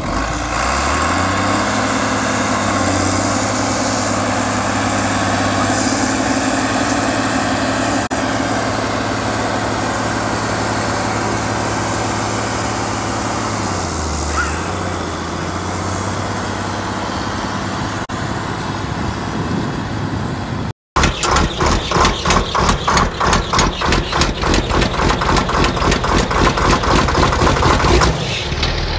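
John Deere tractor's diesel engine running steadily under load while it pulls a chisel plow through the field, its pitch dipping briefly about halfway. After a cut near the end, a different loud pulsing sound takes over, about three beats a second.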